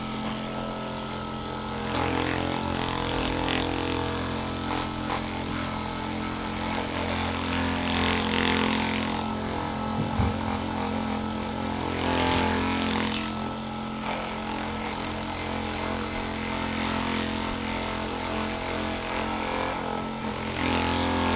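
A small electric motor humming steadily at an even pitch, with a few brief louder swells over it.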